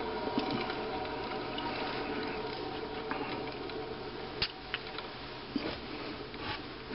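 Sioux valve face grinding machine coasting down after being switched off: a steady whir that fades slightly, with a few light clicks past the middle.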